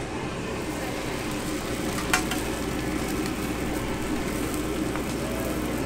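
Thin roti dough sizzling on an oiled flat griddle over a steady low hum, with one sharp click about two seconds in.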